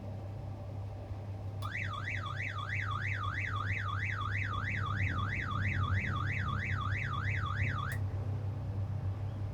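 Mobile crane's wind alarm warbling: an electronic tone sweeping up and down about three times a second. It starts about a second and a half in and cuts off near the end, warning that wind gusts have passed the crane's limit. Under it, a steady low drone of the running crane engine.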